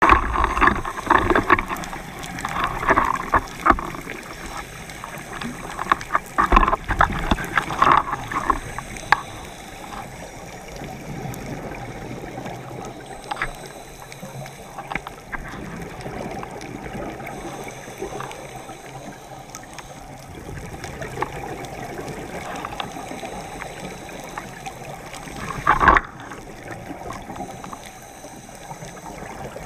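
Scuba diver's regulator breathing underwater, heard through a GoPro's underwater housing: gurgling bursts of exhaled bubbles come in clusters over the first third and once more near the end, over a steady underwater hiss.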